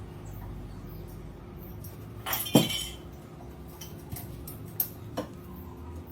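A few clinks and knocks of small hard objects being handled. The loudest is a clattering clink about two and a half seconds in, followed by a few sharper clicks, over a faint steady hum.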